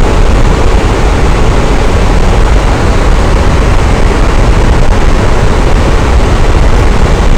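Electric fan running steadily: an even, loud whooshing noise with no change in speed.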